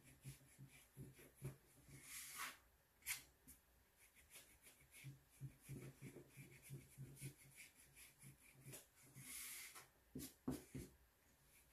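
Near silence with faint, quick rubbing strokes of a soft eraser on watercolour paper, taking off pencil lines. A brief soft hiss comes about two seconds in and again near the end.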